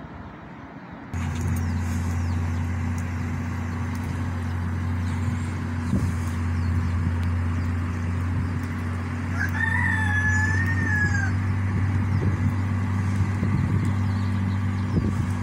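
Outdoor condensing unit of a Midea ZenAire 24,000 BTU DC-inverter mini-split running with a steady hum, which sets in about a second in. A rooster crows once about ten seconds in.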